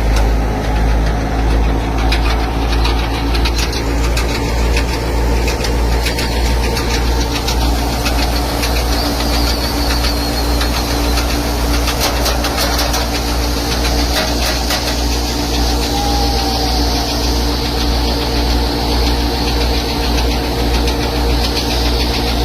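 Tractor engine running steadily as it drives a wheat thresher: a low, even hum with scattered rattling from the machinery.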